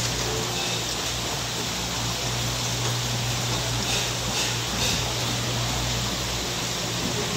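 Steady seafood-market ambience: an even hiss of water running through the live-seafood tanks, over a low steady hum.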